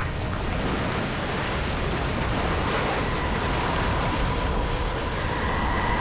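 Nyiragongo's lava lake churning, a steady rushing noise, with a faint high hum coming in about halfway through.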